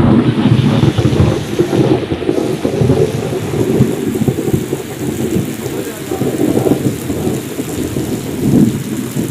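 Thunderstorm: heavy rain pouring onto a flooded road, under a loud low rumble of thunder that starts suddenly and rolls on, swelling and fading in waves.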